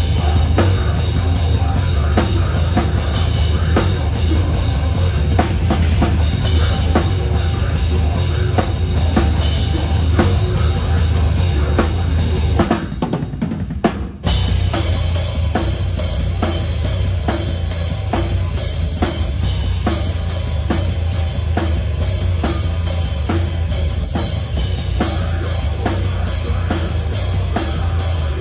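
Live rock band playing, with the drum kit loud and close: kick, snare and cymbals keep a steady beat over a heavy bass low end. About 13 seconds in the band drops out for a moment, then comes back in on a drum hit.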